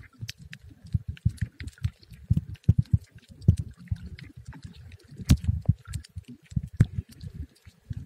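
Muffled underwater sound picked up by a camera just below the surface: irregular low thumps and sloshing of moving water, with scattered sharp clicks.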